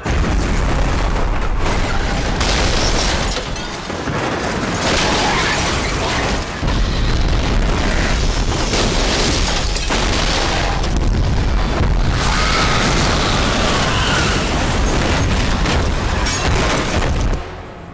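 Film sound effects of explosions and destruction: continuous heavy booms with a deep rumble, cutting off sharply near the end.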